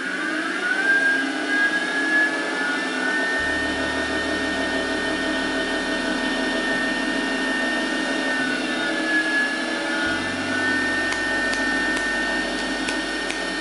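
Belt-driven spindle and 1100 W DC motor of an RCOG-25V mini milling machine (a PM-25MV clone), its whine rising during the first second as the speed knob is turned up, then running steadily at about 2,200 rpm. It runs quietly even near maximum speed.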